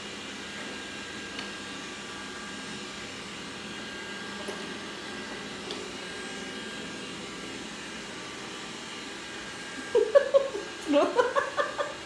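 Robot vacuum cleaner running steadily on its first cleaning-and-mapping pass, an even whir with faint steady whine tones and a few light ticks. About ten seconds in, a short burst of voice-like sounds rises briefly above it.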